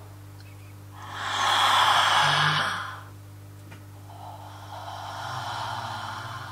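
A person breathing out loudly into a close microphone, twice: a long, loud sigh about a second in, then a softer, longer one near the end.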